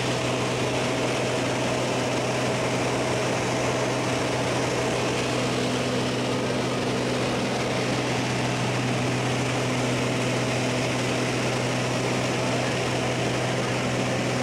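Small jump plane's engine and propeller heard from inside the cabin in flight: a steady drone, a constant low hum with a broad rushing noise over it.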